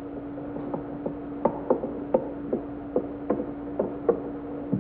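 Steady low hum with irregular light knocks and clicks, roughly two to three a second, like small mechanical handling sounds.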